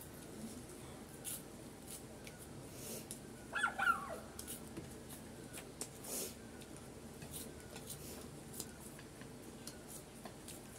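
Faint clicks and crunches of people eating crunchy cheese balls with chopsticks, with a brief high-pitched cry about four seconds in.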